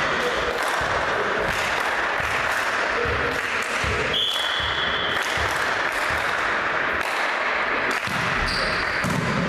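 Echoing sports-hall noise with a volleyball bouncing on the wooden floor several times, and a short, steady referee's whistle blast about four seconds in, signalling the next serve.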